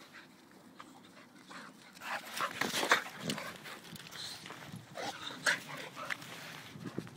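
Alapaha blue blood bulldog and blue Staffordshire bull terrier play fighting: a string of short dog noises that starts about two seconds in, loudest around three seconds and again around five and a half seconds in.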